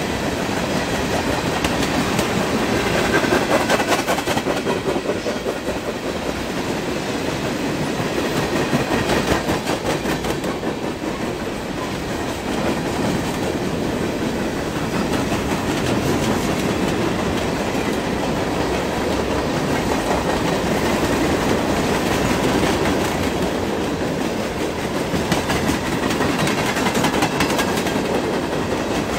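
CSX mixed freight train rolling steadily past, its wheels clicking over rail joints in a continuous clickety-clack. Tank cars go by first, then open-top freight cars.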